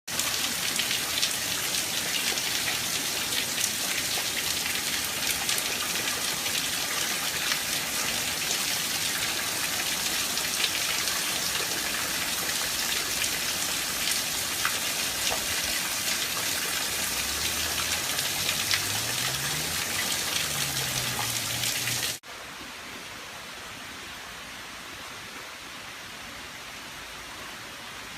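Rain falling steadily: a dense hiss full of fine drop ticks. About 22 seconds in it cuts abruptly to a quieter, smoother rain hiss.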